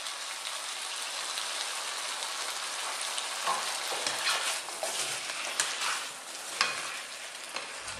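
Tuna chunks, tomatoes and onion sizzling steadily in a non-stick frying pan. From about halfway through, a spatula stirs and tosses them with a few clicks and scrapes against the pan.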